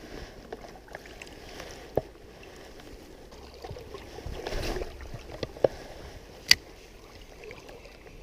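Flowing stream water with a few sharp clicks, the loudest about six and a half seconds in, and a brief splashy swell about four and a half seconds in.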